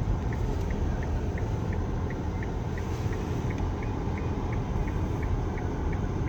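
Car cabin sound while driving slowly: a steady low rumble of engine and road, with the indicator relay ticking evenly about three times a second.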